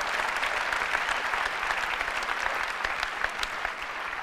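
A large audience applauding, a dense, steady clapping that eases off slightly near the end.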